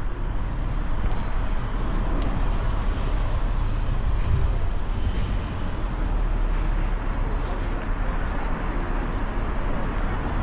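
Road traffic on a city street: a steady wash of car engine and tyre noise, heaviest in the low end.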